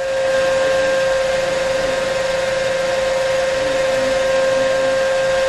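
Lab-Volt DC motor and dynamometer running steadily under load, a continuous electric whine with one strong steady tone over a machine hum.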